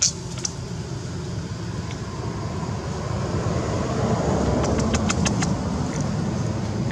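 Steady low rumble of a road vehicle, growing louder about halfway through as it passes, with a few short sharp clicks near the middle.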